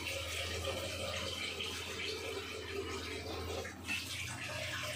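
Steady low hum with a faint, even hiss, and a single soft knock about four seconds in.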